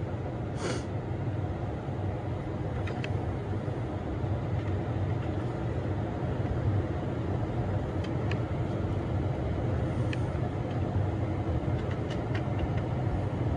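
Steady low mechanical drone, with a few faint light clicks.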